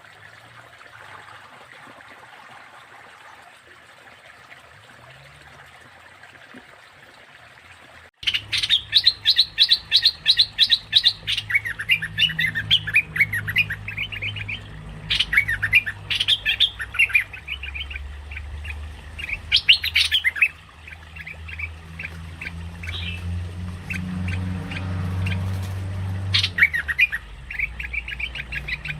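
Merbah lekir bulbul lure call: after a few seconds of faint hiss, a fast, excited chattering of repeated sharp notes starts abruptly about eight seconds in and runs on in bursts. A low hum runs beneath the calls.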